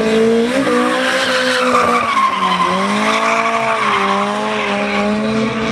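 Drift car sliding through a corner: the engine is held high in the revs, dips briefly about two and a half seconds in, then climbs again, over the steady hiss of tyres skidding.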